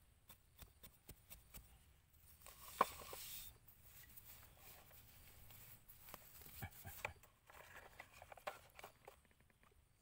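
Faint scraping and tapping of a metal blade and hands working loose dirt, with one sharper click about three seconds in.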